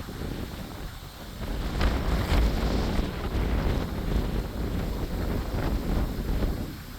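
Strong storm wind buffeting the microphone in gusts, swelling about a second and a half in and easing near the end.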